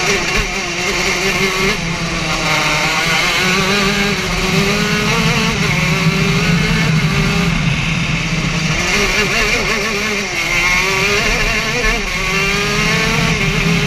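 Racing kart engine heard from on board at full lap pace, its pitch rising along the straights and dropping off into the corners several times.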